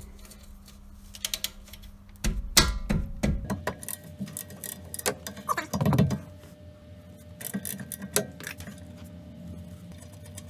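Wrench work on a car's rear brake caliper bracket: scattered metal clicks and clanks as the two 14 mm bracket bolts are undone, with a louder knock about two and a half seconds in and a dull thud about six seconds in.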